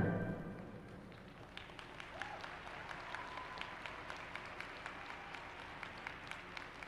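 Thin, scattered clapping from a small audience in an ice rink, with individual claps heard separately. At the very start the orchestral program music dies away.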